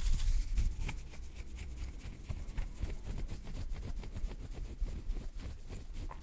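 ASMR hand sounds close to a microphone: fingers moving and fluttering around it, making dense, irregular soft clicks and crackles over a low rumble.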